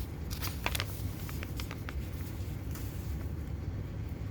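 Paper being handled: a brief flurry of light rustles and small ticks about half a second to two seconds in, over a steady low hum.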